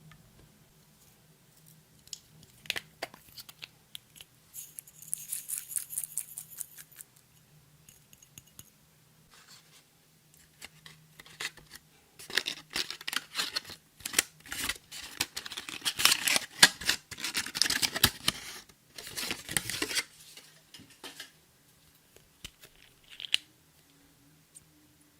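Clear slime being worked by hand with makeup and glitter mixed in: irregular sticky clicks, pops and crackles. They come in short spells, with a dense, louder run in the second half and quieter gaps between.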